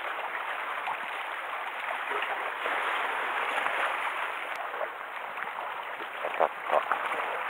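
Sea water washing steadily against a rocky shore, with two short knocks near the end.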